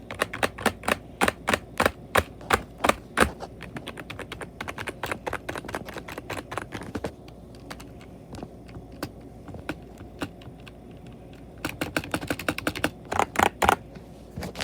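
Membrane computer keyboard being typed on: a fast run of keystrokes, then a sparser, quieter stretch of a few presses, then another quick burst of keystrokes near the end.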